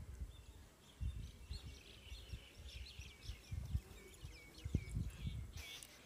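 A bird chirping in a quick run of short, high notes that slide downward, over irregular low thumps.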